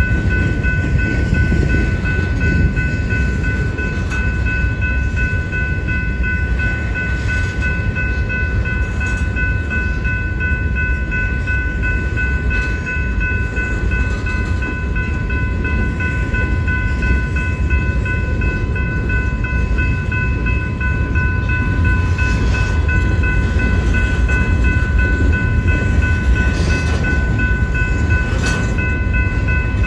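Freight train rolling past at a grade crossing: a steady rumble of wheels on rails, with a few clicks of wheels over rail joints in the second half. A steady ringing holds through it all, which fits the crossing bell of the active signals.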